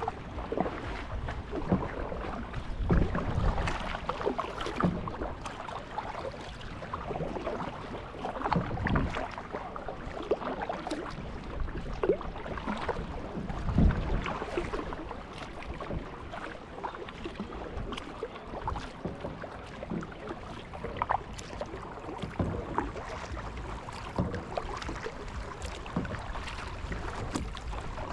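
Kayak paddling: the paddle dipping and splashing in the water at irregular intervals over a steady wash of moving water.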